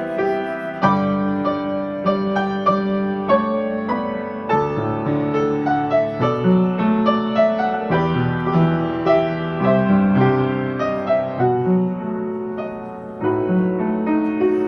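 Piano playing a melody over chords, note after note; the playing thins and softens briefly near the end.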